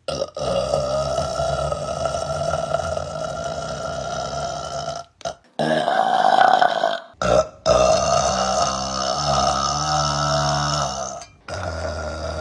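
A woman's long, drawn-out burps, one after another, each cut off abruptly. The longest lasts nearly five seconds.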